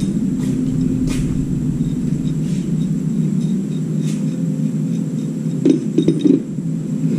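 Steady low droning hum, with a short cluster of dull thumps about six seconds in.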